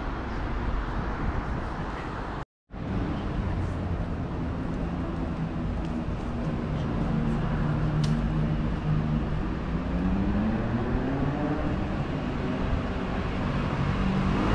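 City street traffic: a steady wash of road noise with a vehicle engine humming underneath, its pitch rising about ten seconds in as the vehicle pulls away. The sound cuts out completely for a moment about two and a half seconds in.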